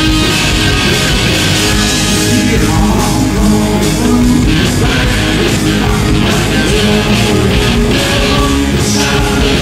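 Southern rock band playing live and loud: distorted electric guitars, bass guitar and drums together, at a steady full level.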